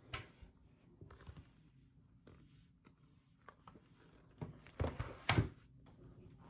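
Hardcover picture book being handled: soft rustles and light taps as it is tilted and turned, with two louder knocks a little more than halfway through.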